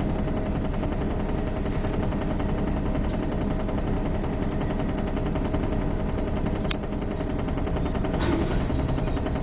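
An engine idling steadily, with a rapid, even pulse and a steady hum over it.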